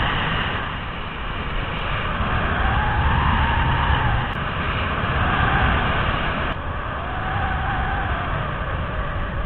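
Wind rushing over the camera microphone of a mini paraglider in fast, low flight: a steady rush with heavy low buffeting that swells and eases. A faint whistle rises and falls twice.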